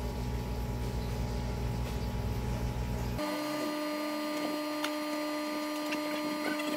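Hot air gun blowing steadily on a circuit board to melt the solder of an LVDS connector. About halfway through, the low rumble cuts off abruptly and a steady hum with faint higher tones goes on.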